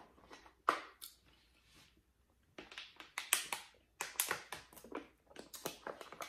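Close-miked eating and drinking sounds: chewing with sharp crackles, then sips from a plastic water bottle, whose thin plastic crackles and clicks as it is handled and capped.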